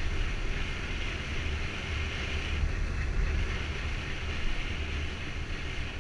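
Wind rushing and buffeting over a helmet camera's microphone on a moving motorcycle, a steady deep rumble with a hiss over it that eases briefly about halfway through. The Hyosung cruiser's engine runs underneath at road speed.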